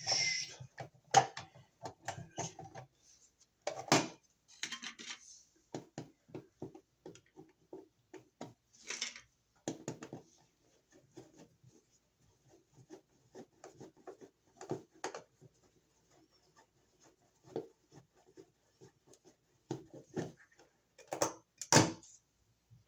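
Scattered clicks, taps and brief scrapes of a screwdriver and plastic parts as a worn wall outlet's cover plate and receptacle are unscrewed and pulled from the box.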